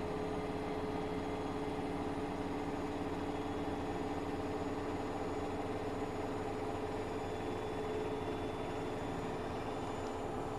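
Washing machine running with a steady, unchanging motor hum.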